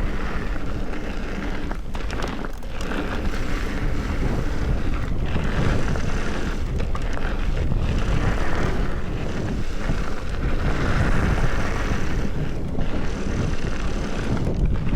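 Whitewater rushing steadily, a loud even noise with a few brief dips.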